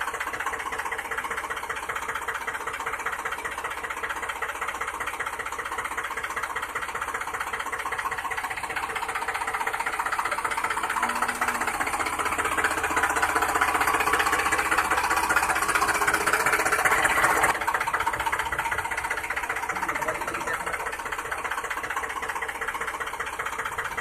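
Small motor of a home-made miniature machine running with a fast, even clatter. It grows louder toward the middle, then drops back suddenly about two-thirds of the way through.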